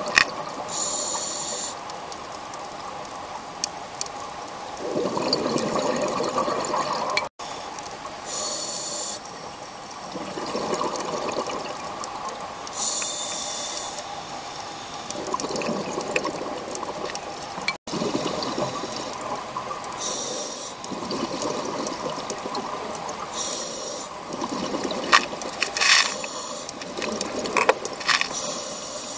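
Scuba diver breathing through a regulator, heard underwater: short hissing inhalations every few seconds alternate with longer bubbling exhalations, with scattered clicks between them.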